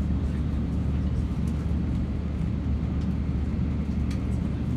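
Steady low rumble of a Shinkansen bullet train running at high speed, heard from inside the passenger cabin.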